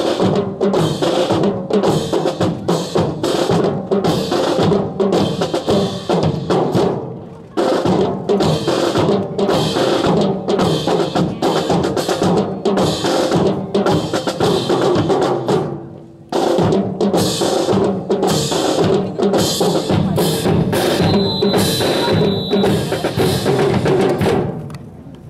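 Drill drum corps playing a steady marching cadence on snare drums and bass drum. There are short breaks about 7 and 16 seconds in, and the drumming stops just before the end.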